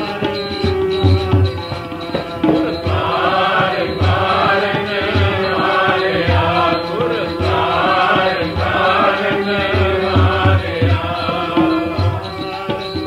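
Sikh kirtan: voices singing a devotional hymn over the steady held notes of a harmonium and regular tabla strokes. The singing comes in about three seconds in and fades back near the end, leaving the instruments.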